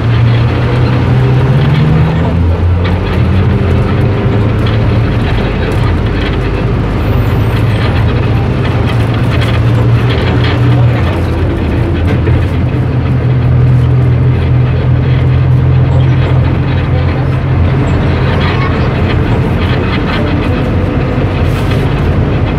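Bus engine and road noise heard from inside the passenger cabin while riding. The engine note rises about two seconds in as it speeds up, then holds a steady hum.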